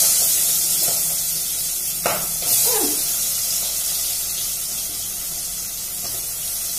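Chopped green chillies dropped into hot oil in a steel pot, sizzling. The sizzle flares up sharply at the start and again about two and a half seconds in, then settles to a steady hiss.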